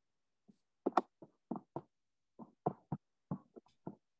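About a dozen short, quiet taps and knocks at an uneven pace, starting about half a second in.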